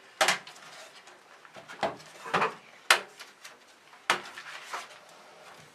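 Thin metal motherboard I/O shield being pressed and snapped into the rear opening of a PC case: a run of about six sharp clicks and knocks, irregularly spaced.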